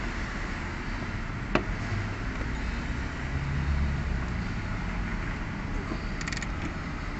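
Small parts being handled during a fuel pump and filter job: one sharp click about one and a half seconds in and a quick run of light clicks near the end, over a steady low background rumble.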